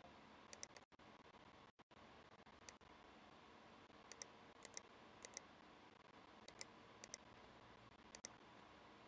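Faint computer mouse clicks over near silence, mostly in quick pairs spaced irregularly about every half second to a second.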